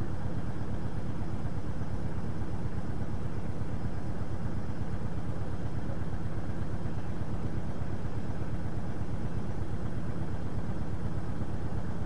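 Vehicle engine idling: a steady low rumble that does not change.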